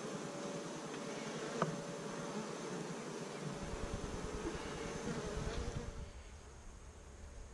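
A mass of honeybees buzzing steadily on an open hive frame, with one small click early in. About halfway through a low rumble joins in, and near the end the buzzing grows thinner.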